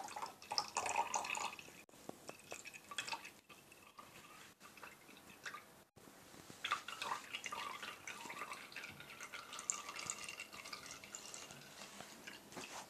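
Apple juice dripping and trickling from a mesh strainer into a bowl, faint, with small irregular clicks.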